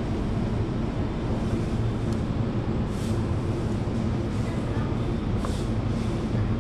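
Steady low drone of a running vehicle engine over constant road noise, with two short hisses about three and five and a half seconds in.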